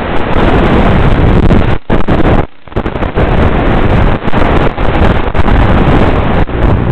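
Loud, rough wind rush over the onboard microphone of an FPV flying wing in fast low flight, briefly dropping out about two and a half seconds in.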